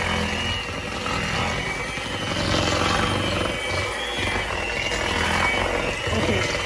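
Electric hand mixer running at a steady speed, its beaters whipping softened cream cheese in a plastic bowl, with a constant motor whine.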